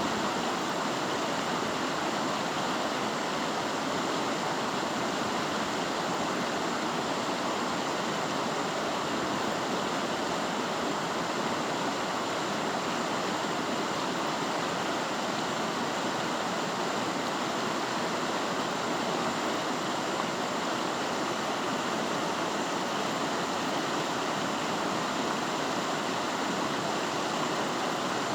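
Mountain river rushing over rocks: a steady, even roar of fast-flowing water.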